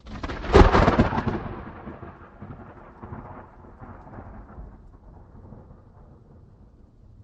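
A thunder clap: a sudden sharp crack that peaks about a second in, followed by a long low rumble that slowly dies away.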